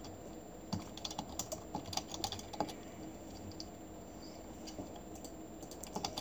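Computer keyboard typing: a quick run of keystrokes in the first few seconds, then a pause and a few scattered key presses near the end.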